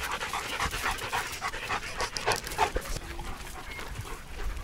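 Dog panting in quick, regular breaths.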